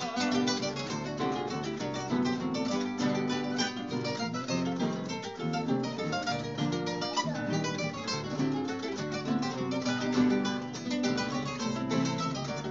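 Several nylon-string classical guitars playing together, plucking and strumming an instrumental interlude of a Cuyo tonada between sung verses.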